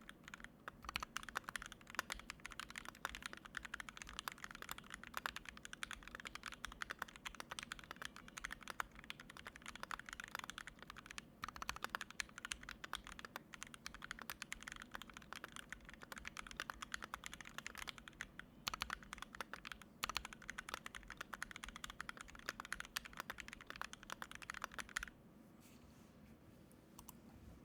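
Typing on a KBD67 MkII mechanical keyboard with 43 Studio toy switches, a brass plate, GMK keycaps, Durock stabilisers and foam in the case and between the PCB and plate. A fast, continuous run of key clicks stops a few seconds before the end.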